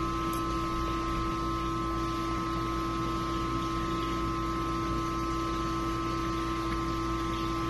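Steady machine hum with a few constant pitched tones, one low and a cluster higher up, over an even hiss.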